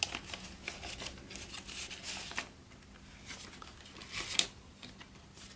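Paper banknotes rustling and flicking as hands leaf through and sort a stack of US dollar bills, with many small crisp clicks. One sharp, loud snap of paper comes a little after four seconds in.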